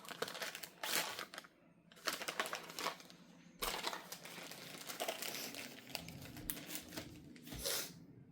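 Plastic packaging crinkling and rustling as kit contents are handled and put away, with scattered light clicks and taps.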